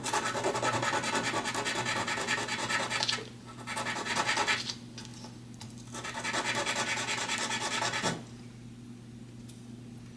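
Broken end of a lamp switch knob rubbed back and forth on sandpaper in quick scratchy strokes, flattening where it snapped off. It comes in three bouts: about three seconds, a short one around four seconds in, and a longer one that stops about eight seconds in.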